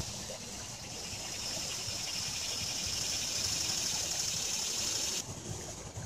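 A shallow creek running over stepping stones, with a high, steady insect buzz over it that builds in during the first second and cuts off suddenly about five seconds in.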